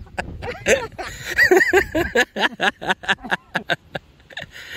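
People's voices, talking and chuckling, with a quick run of laugh-like syllables in the middle.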